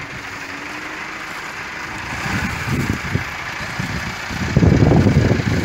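Tractor-driven KSA straw reaper running, blowing chopped wheat straw (toori) through its delivery pipe into a trolley: a steady rushing hiss over machine and engine noise. A louder, rougher low rumble comes in about four and a half seconds in.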